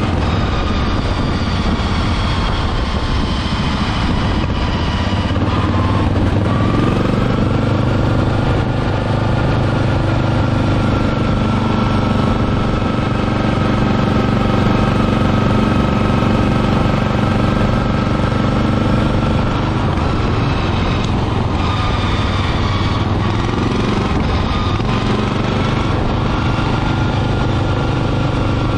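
A 1996 Murray riding mower's 12 hp Briggs & Stratton engine running under way as the mower is driven. The engine note steps up about six seconds in, sags around twenty seconds and picks up again a few seconds later.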